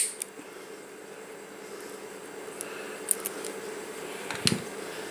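End-cutting nippers snipping off the end of a leaf blower's starter rope: one sharp click right at the start. A few faint handling clicks follow about three seconds in, then a soft knock about four and a half seconds in, over a steady low hum.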